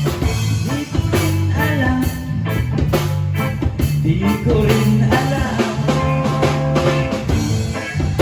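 Live rock band playing: drum kit hits keep a steady beat over a bass line, with a melodic line bending up and down above them.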